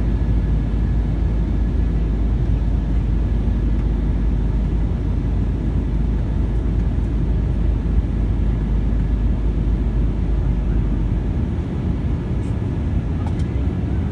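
Steady low roar in the cabin of an Embraer E195 jet in flight, from its wing-mounted GE CF34-10E turbofan and the air rushing past, heard at a window seat beside the engine. A faint steady whine sits above the roar, and the deepest rumble eases slightly near the end.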